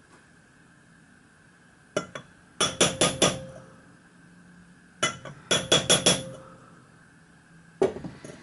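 Small cross-pein hammer tapping a copper end plate into a copper boiler barrel to seat it square. Two quick runs of four or five light taps with a short metallic ring, about three seconds apart, and a couple more taps near the end.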